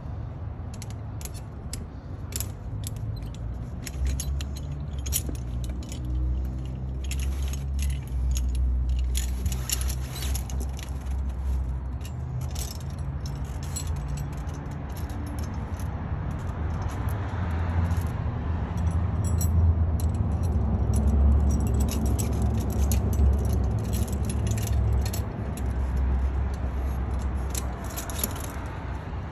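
Steel tire chains clinking and rattling in quick irregular clicks as the links are handled and a lever load binder pulls a spring tensioner's chain tight on a large tractor tire. Underneath runs a steady low rumble.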